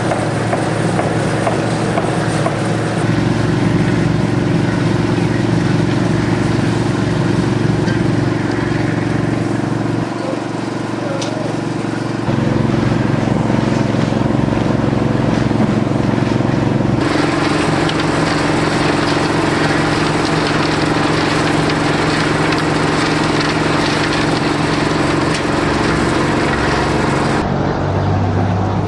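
A motor running steadily with a low, even drone. Its tone and loudness shift abruptly several times.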